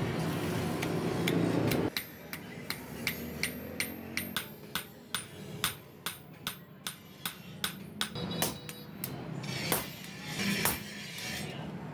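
Hand hammer striking a hot knife blade on a small steel anvil: a steady run of sharp blows, about three a second. For the first two seconds a low steady rush is heard instead, cutting off abruptly before the hammering starts.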